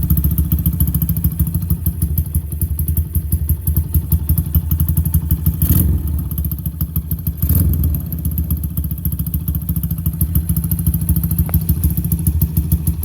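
Honda Tiger motorcycle's single-cylinder four-stroke engine, bored up to 212 cc, running at a steady pulsing idle, with two short throttle blips a couple of seconds apart partway through.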